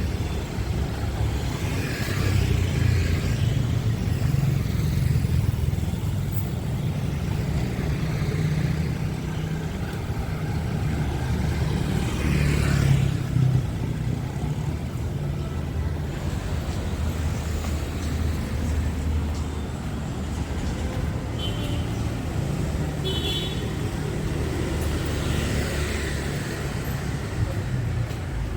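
Busy city street traffic: cars and motorbikes passing in a steady stream, several swelling up as they go by, with a couple of short high beeps about three quarters of the way through.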